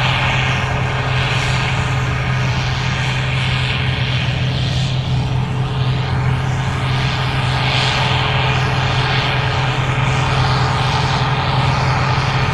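Gleaner R65 combine running steadily, a constant low engine drone with a rushing hiss of machinery above it that swells and fades.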